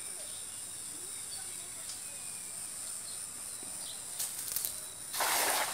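A steady high drone of insects, with a brief rustle of the cast net being swung a little past four seconds. Near the end a short, loud splash comes as the weighted cast net lands on the pond.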